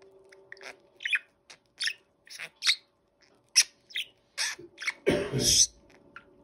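Budgerigar chattering: a string of short, high chirps, with a louder, longer burst about five seconds in.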